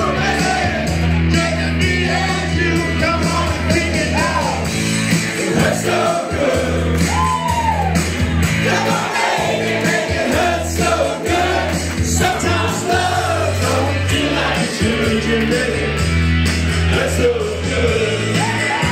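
An amateur group singing a rock song into microphones over a loud backing track with a steady bass line, while the room sings and cheers along.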